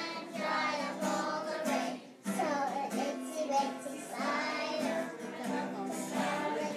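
Children singing along to a strummed acoustic guitar, with a brief break in the singing about two seconds in.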